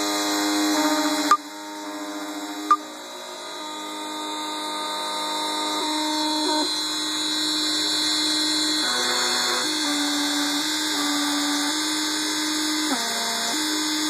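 Keyline 994 key-cutting machine milling a Honda HS key blank: a steady motor whine that shifts pitch in steps every few seconds as the cutter moves along the blade. Two sharp clicks come a little over a second in and again over a second later.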